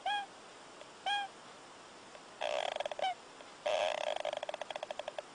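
An animal snoring: fast rattling buzzes about a second long, with short squeaky chirps between them, two near the start.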